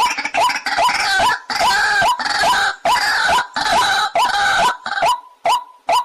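White-breasted waterhen calling: short harsh rising notes repeated about two to three times a second, in a rough overlapping chorus that thins to single clear notes about five seconds in.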